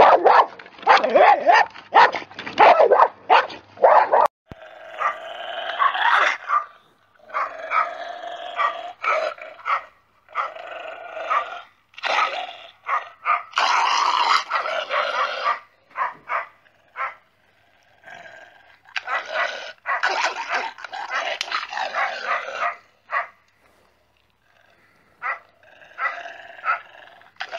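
Angry dog barking and growling. Quick, loud barks come one after another for about four seconds, then the sound changes to longer bouts of rough growling and barking with short pauses between them.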